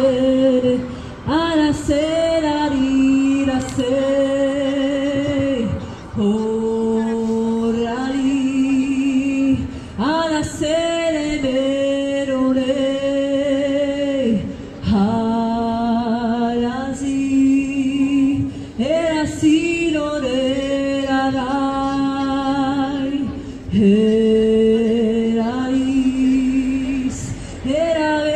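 A woman singing a slow worship melody alone, with long held notes and vibrato in phrases of a few seconds, each separated by a short breath, and no clear words.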